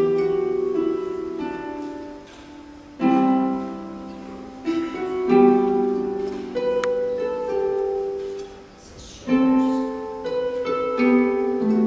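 Solo harp being played: plucked notes and chords ring out and fade. Fresh chords are struck about three seconds in, again past five seconds, and after nine seconds.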